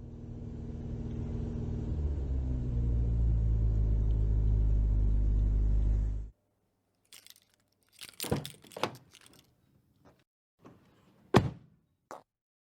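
Car engine sound effect running steadily, fading in and swelling, then cutting off abruptly about six seconds in. A few sharp clicks and thunks follow.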